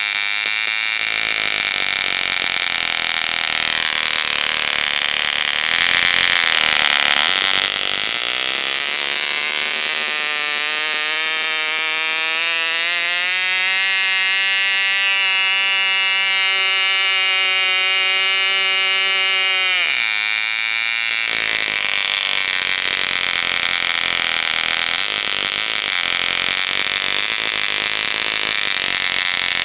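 Unmuffled 1973 Fox 29 two-stroke glow engine running loud at full throttle near 11,000 rpm on a 9x6 propeller, its pitch sagging and then climbing a little as it is adjusted. About two-thirds of the way in the throttle is pulled back and the note drops abruptly to a lower, uneven idle near 5,800 rpm.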